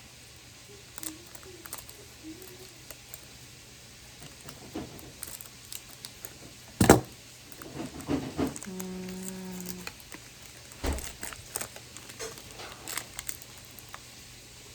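Pokémon trading cards and their foil pack being handled on a table: scattered light clicks and taps, with one sharp knock about seven seconds in and a brief steady low tone a couple of seconds after it.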